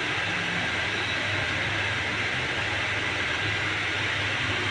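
Toyota 3UR-FE 5.7-litre V8 running steadily, heard close up in the engine bay: an even mechanical whir and hiss over a low hum.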